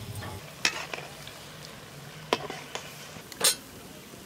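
Kachayam fritters deep-frying in hot oil, a steady sizzle, with a metal spoon knocking against the pan about three times.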